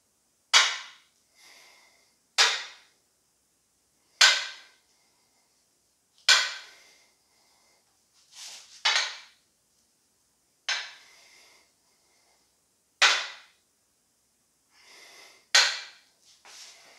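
A man's sharp, forceful exhales, about eight of them, one every two seconds or so, each with a rep of a dumbbell bench press, with a few fainter breaths in between.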